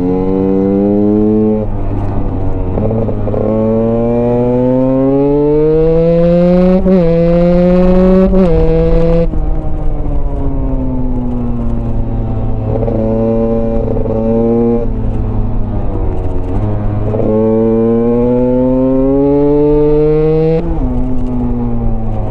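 Husqvarna dirt-bike engine under way, repeatedly revving up with the pitch climbing and then dropping sharply at gear changes or when the throttle closes, several times over.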